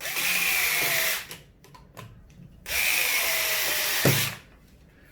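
Cordless drill driving the mounting screws of a wall switch into its back box, in two runs of about a second and a half each; the second run ends with a short knock as the screw seats.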